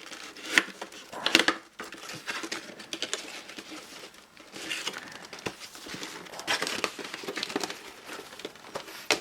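Plastic packaging and a cardboard box being handled and pulled open by hand: irregular crinkling and rustling with sharp crackles and clicks, loudest about a second in.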